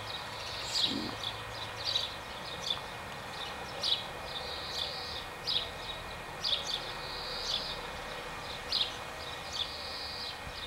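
Cicadas singing: sharp clicking chirps and short high buzzes repeating about once a second over a steady high drone.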